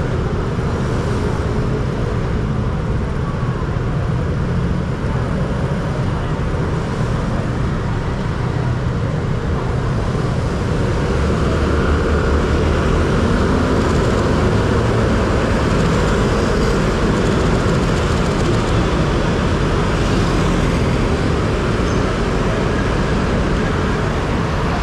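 Steady city street traffic: motor scooters and cars running along a busy road, a continuous engine and tyre noise that grows a little louder about halfway through.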